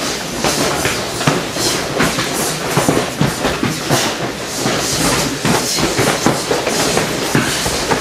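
Many pairs of full-contact karate fighters sparring at once: a dense, irregular run of gloved punches and kicks landing on bodies and gi.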